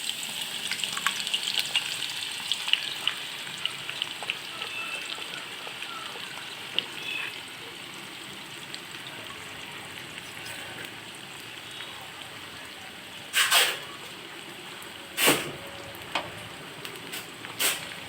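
Onions frying in hot oil in a kadai, sizzling and crackling, busiest just after they go in and then settling to a steadier sizzle. Three sharp knocks come in the last few seconds.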